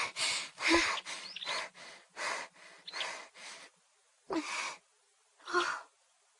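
Quick, heavy panting breaths, about three a second, then two slower, louder gasps near the end.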